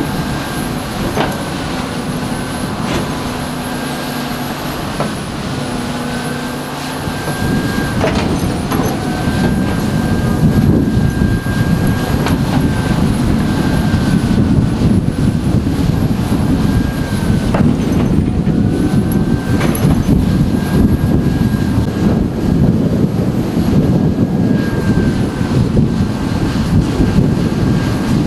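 Caterpillar hydraulic excavator's diesel engine running, growing louder about seven seconds in as it works. A high whine wavers above it, and there are a few clanks.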